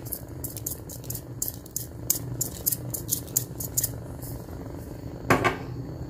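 Shrimp, mussels and clams simmering in a pan of thin sauce, bubbling and crackling over a steady low hum. There is one short, louder sound about five seconds in.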